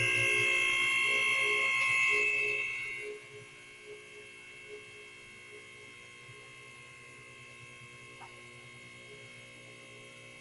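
Electric motor of a vehicle lift's hydraulic pump running with a steady hum as the car is raised, then shutting off about three seconds in.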